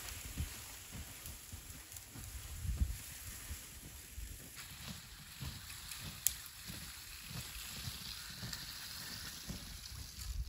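Bundle of pine branches dragged over snow, a swishing scrape with irregular crunching footsteps in the snow.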